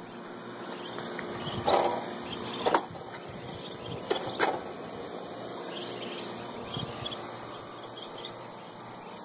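A flock of ducklings peeping steadily in high, thin chirps, with a few louder short sounds about two and four seconds in.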